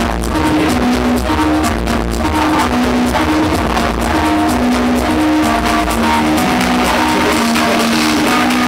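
Electro dance music played loud over a nightclub sound system, with a repeating riff that alternates between two notes over a thumping bass. The deep bass thins out about six seconds in.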